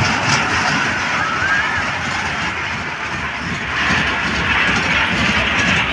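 Kiddie dragon-train roller coaster running along its elevated steel track: a steady rumble and rattle of the cars, getting a little louder about four seconds in.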